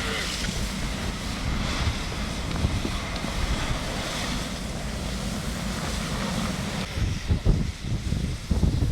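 Wind buffeting the microphone over a steady rushing hiss, with stronger irregular gusts near the end.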